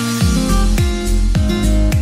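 Background music: an upbeat track whose deep kick drum comes in about a quarter second in, with a falling pitch, and then hits about every 0.6 s under a melody.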